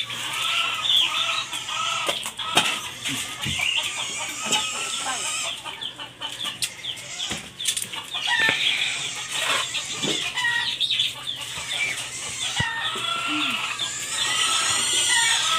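Chickens clucking in a run of short repeated calls, with higher chirping behind them and a few sharp knocks.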